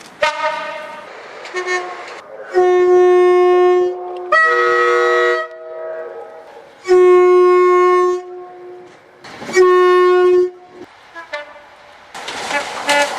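Train horn sounded in separate blasts: a low note, a higher note, then two more low notes, each about a second long. A loud rushing noise follows near the end.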